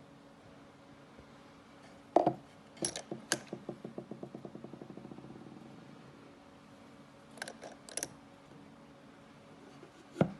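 Metal clicks and knocks from a small precision lathe being handled. A knock about two seconds in, then a run of even ticks, about eight a second, fading over about three seconds as a part spun by hand slows. More clicks follow, and a knock near the end.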